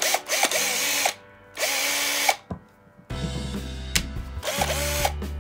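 Parkside 20 V cordless drill driver run off the trigger in short bursts: two quick spins that rise and settle in pitch in the first two seconds, then a steadier run from about three seconds in.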